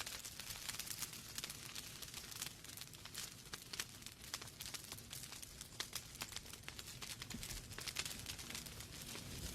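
Wood fire in a fireplace crackling: a steady hiss of burning logs with many small, sharp pops at irregular intervals, several a second.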